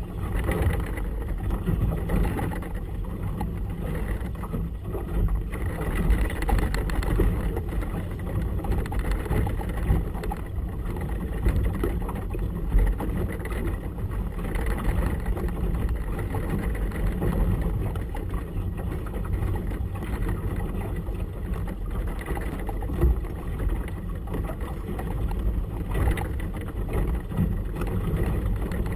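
Motorboat on choppy water: a steady low engine rumble mixed with wind buffeting and irregular water slaps against the hull.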